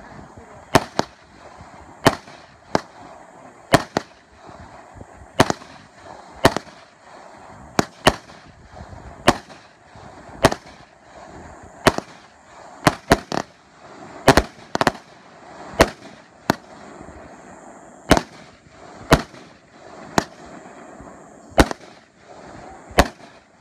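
Consumer aerial firework cake firing shot after shot: a steady run of sharp bangs, about one or two a second, as its small star bursts break overhead.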